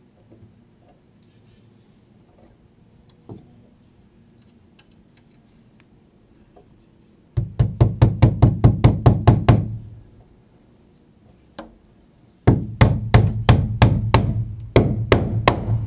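Hammer driving nails through a steel Simpson Strong-Tie H2.5 hurricane clip into a wooden truss and top plate. There are two quick runs of blows, about six a second, one starting about seven seconds in and the other near the end. Each strike has a short metallic ring.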